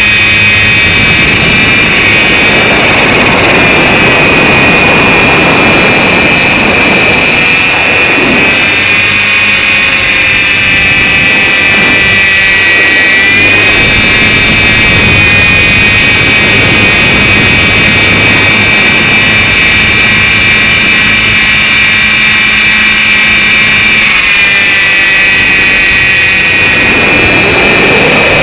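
Align T-Rex 450 Pro electric RC helicopter in flight, heard from a camera strapped under its body: a loud, steady high-pitched whine from the motor and drive, wavering slightly in pitch a few times.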